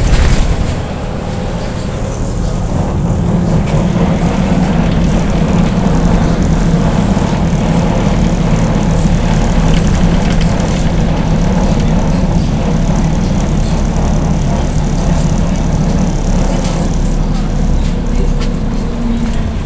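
Cabin noise of a BKM 321 trolleybus under way: a steady hum from the electric drive over rolling and road noise. A brief loud knock comes right at the start.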